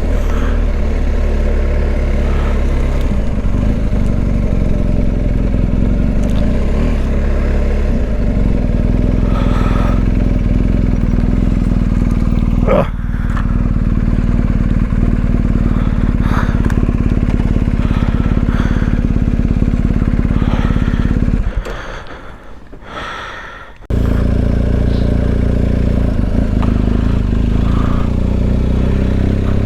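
Adventure motorcycle engine running steadily under way, with wind and riding noise. About three quarters of the way through, the engine sound drops away for about two seconds, then comes back abruptly.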